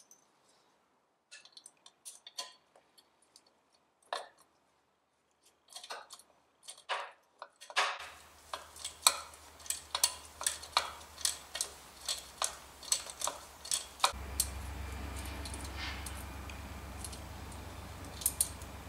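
A wrench working a 10mm nut off an intake-pipe stud on a moped's cylinder: scattered light metallic clicks, then a run of evenly spaced clicks, about three a second. A low steady hum comes in about eight seconds in and grows louder later.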